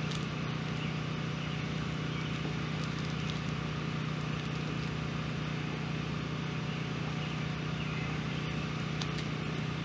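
Steady whir of a small electric motor: an even hiss over a constant low hum.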